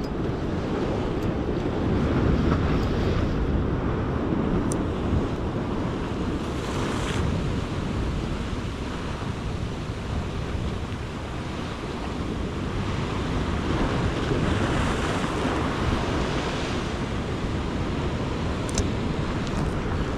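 Sea swell washing against a rock ledge, with wind rumbling on the microphone; the wash swells up and fades away several times.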